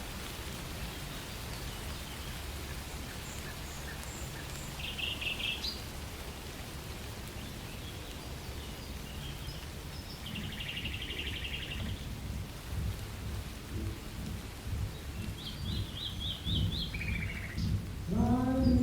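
Steady rain with a low rumble, likely thunder. Songbirds call a few times over it: short chirps about five seconds in, a buzzy trill a little after ten seconds, and a run of quick notes near the end.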